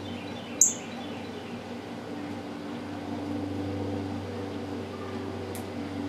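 Faint rapid series of high bird chirps near the start and again near the end, over a steady low hum. One sharp click about half a second in is the loudest sound.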